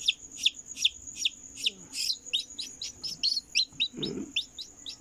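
Newly hatched Peruvian chicken chick peeping: a steady string of short, high, falling peeps, about two or three a second, that come faster and less evenly from about halfway through.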